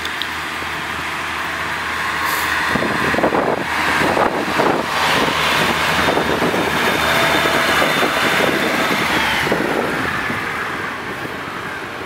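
A two-car Pacer diesel railbus passes close by with its underfloor diesel engines running. The sound builds over the first few seconds, then for several seconds a steady high whine runs over rapid knocks from the wheels, fading as the train pulls away near the end.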